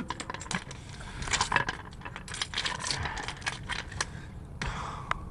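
Knife blades scraping and clinking through loose pebbles: an irregular run of small clicks and clatters of metal on stone.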